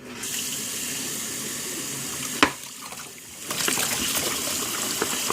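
Tap water running into a sink while a dog bowl is washed, with a sharp knock about two and a half seconds in, a short lull, then the water running again.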